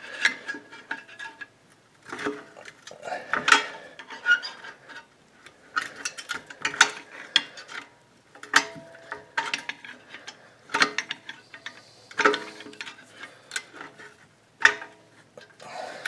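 Flathead screwdriver clicking and scraping against the star-wheel adjuster of a 2014 Subaru Outback's rear parking-brake shoes, through the access hole in the rotor. The clicks come in groups every second or two, some followed by a brief metallic ring. The adjuster is being cranked down to pull the shoes away from a groove worn in the rotor's hat, so the seized rotor can come off.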